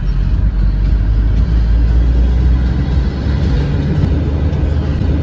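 Steady low rumble of a truck's engine and tyres on the road, heard from inside the cab while driving.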